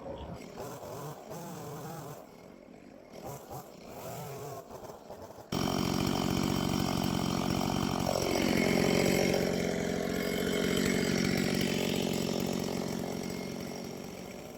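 Gas chainsaw starting suddenly about five seconds in, after quieter, indistinct sounds, and running steadily while boring holes through the top of a wood carving. Its pitch dips about three seconds later as the bar plunges into the wood, then it fades toward the end.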